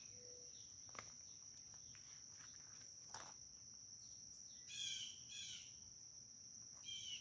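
A steady high insect trill, typical of crickets, over quiet background. A bird calls two short chirps about five seconds in and two more near the end, and there are a couple of faint clicks.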